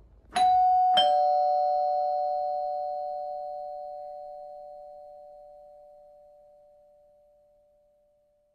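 Two-tone ding-dong doorbell chime: a higher note, then a lower one about half a second later, both ringing on and fading slowly over several seconds.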